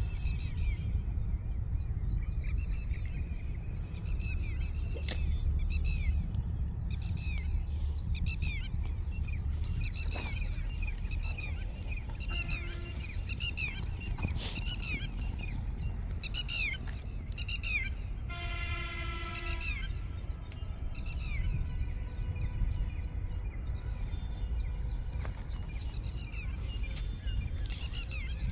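Birds chirping repeatedly over a steady low rumble. About two-thirds of the way through, a horn sounds one steady note for just over a second.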